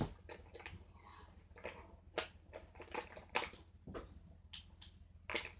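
Irregular light clicks and taps of small hard objects being handled, a dozen or so spread unevenly.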